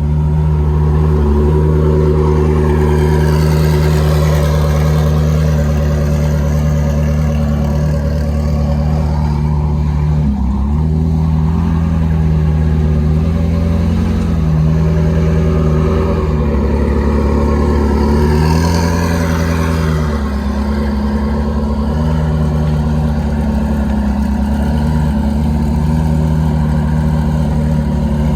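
Koenigsegg twin-turbo V8 running steadily, with its engine note briefly rising and falling back several times, as from light throttle blips.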